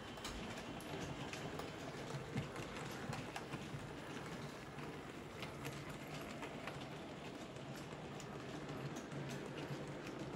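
EM gauge model O4/7 steam locomotive and empty mineral wagons running along the track: a steady low running rumble with scattered small clicks from the wheels.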